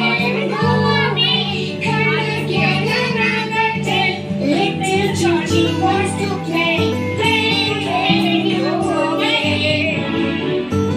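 A children's song: music with a steady bass line and singing.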